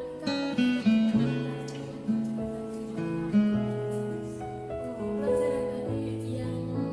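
Background music: a plucked acoustic guitar playing a slow melody over held notes.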